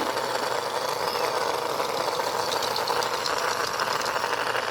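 Small battery-powered motor in a toy pet running steadily, with a fast rattling whirr.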